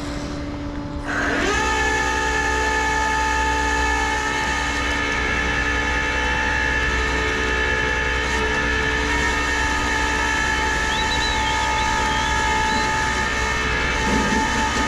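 Tow truck winch motor whining steadily at one pitch as it pulls a car up the bed. It starts about a second in and stops near the end.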